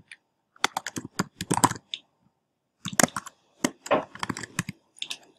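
Typing on a computer keyboard: quick runs of keystroke clicks in bursts, with a short pause about two seconds in.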